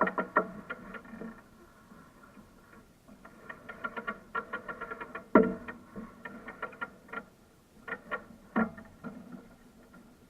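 Background music winding down: scattered plucked-string notes over a faint held tone, growing sparser and fading near the end.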